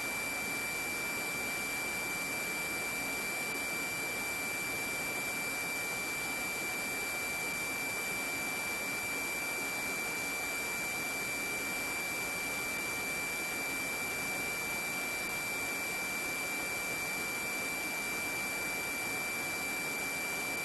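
Steady hiss of the police helicopter's onboard audio channel with a constant high-pitched whine, unchanging throughout.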